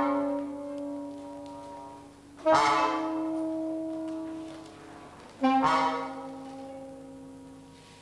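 Trumpet playing three long held notes. Each starts strongly and fades away, with new notes coming in about two and a half and five and a half seconds in.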